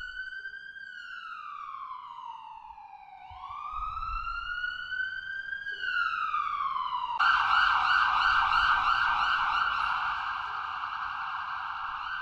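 Emergency-vehicle siren wailing in two slow rising-and-falling sweeps, then switching abruptly, about seven seconds in, to a fast warbling yelp.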